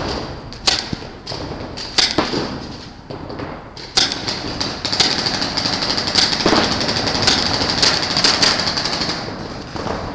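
Paintball markers firing in a game: a few single shots spaced a second or two apart, then a fast volley of shots from about five seconds in until near the end, over a steady high-pitched sound.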